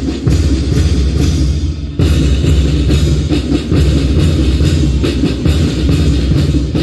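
Marching band playing: brass horns over a steady beat of bass drums and side drums.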